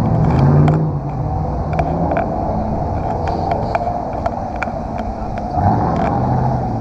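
Car engine running with road rumble, heard from inside a moving car. The engine note rises and falls a little, with scattered light clicks and knocks throughout.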